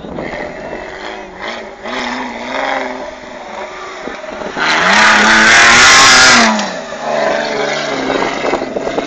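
Mitsubishi Pajero off-roader's engine revving hard under load as it climbs a steep dirt slope, the pitch rising and falling with the throttle. It is loudest and harshest for about two seconds around the middle.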